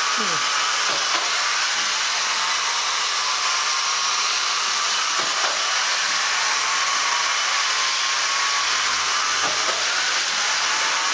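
Motorized K'Nex roller coaster running, giving a steady whirring hiss with a faint tone slowly rising in pitch.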